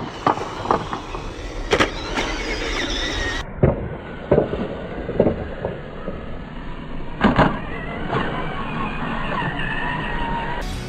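Electric RC truck's motor whining up and down in pitch as it speeds up and slows, with tyre noise on concrete and several sharp knocks, the loudest about seven seconds in.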